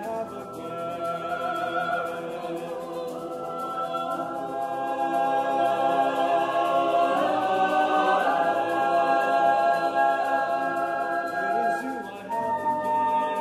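Mixed choir singing a cappella: held chords that change every few seconds, growing louder in the middle and falling away briefly about twelve seconds in before a new chord enters.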